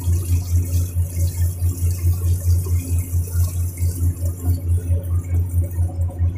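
Boat engine running steadily: a low throb that pulses about five times a second, with a faint hiss of water over it.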